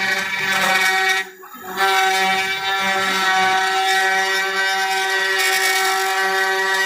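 CNC router spindle running at a steady speed with a loud, even whine. The whine cuts out briefly about a second in and then returns at the same pitch.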